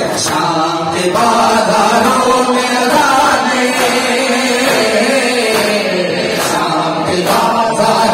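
Crowd of men chanting a Shia noha (mourning lament) together, with the sharp slaps of matam, hands striking bare chests, cutting through the chant.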